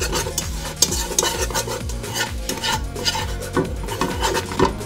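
Wire whisk stirring a thick butter-and-flour roux in a nonstick pot, its wires scraping and tapping the pan in quick, uneven strokes.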